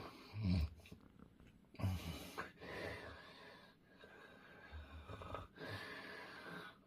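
A man snoring in his sleep: rough, rattling snores, about three in a row, each one drawn out with a rumbling low buzz.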